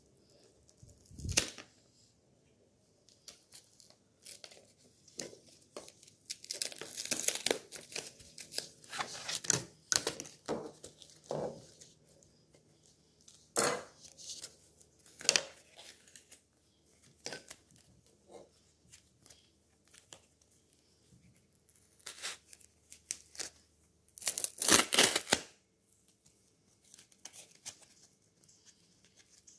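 A knife cutting and scraping through a foam pool noodle: irregular scratchy, tearing strokes in clusters with pauses between, the longest and loudest cut a few seconds before the end.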